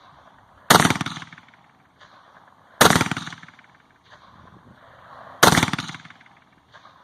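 Three single shots from an AR-15 rifle, fired one at a time about two to two and a half seconds apart. Each shot dies away over about a second.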